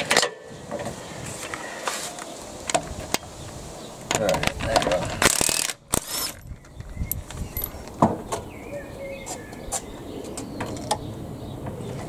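Hydraulic trolley jack being pumped up under a car, its handle and mechanism clicking and clanking. A short loud burst of noise comes a little after five seconds in, from a cordless impact wrench on the wheel nuts.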